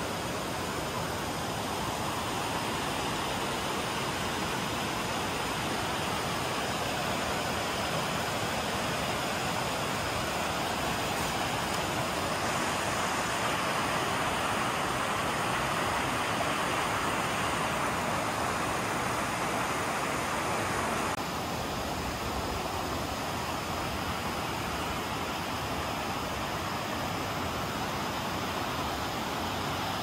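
Waterfall: a steady rush of falling water that drops a little in level and loses some of its hiss about two-thirds of the way through.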